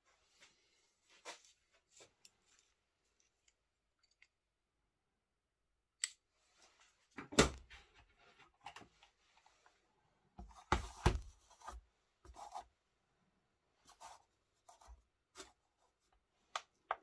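Hands handling a titanium frame-lock folding knife and a metal kitchen scale: light rubs and clicks, with a sharp knock about seven seconds in and a louder cluster of knocks around eleven seconds.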